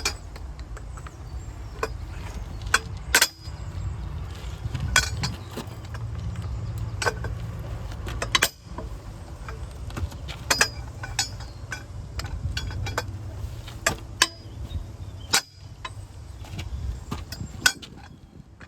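Irregular sharp metallic clinks and knocks, like hand tools working on metal parts, over a steady low rumble.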